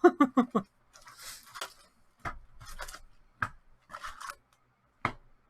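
Handling of a trading-card box and its packaging: a brief rustle about a second in, then a few sharp clicks and taps spread out over the next few seconds.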